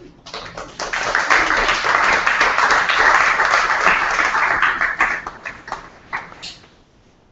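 Audience applauding: clapping starts a moment in, holds for about four seconds, then thins to a few last claps and dies away near the end.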